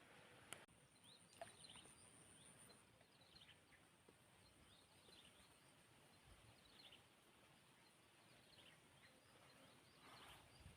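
Near silence: faint outdoor ambience with scattered faint bird chirps and a faint click about half a second in.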